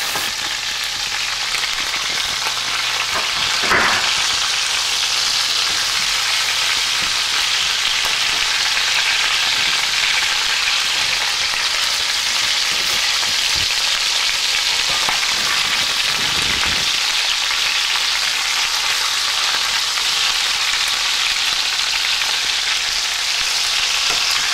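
Chicken pieces frying in oil in a pan, a steady loud sizzle as they brown, with a couple of brief knocks of the pieces being turned or checked.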